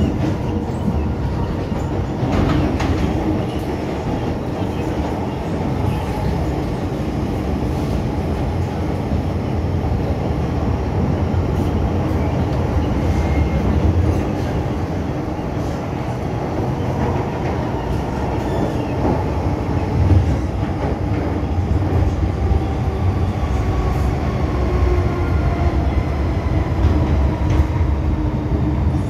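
MTR M-Train electric multiple unit running along the line, heard from inside the car: a steady rumble of wheels on rail, with a faint motor whine that drifts in pitch.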